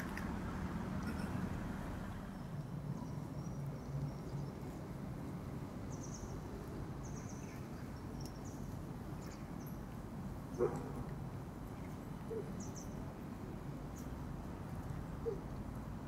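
Quiet town-centre ambience: a low steady background hum with faint, scattered bird chirps and a single short, louder call about ten and a half seconds in.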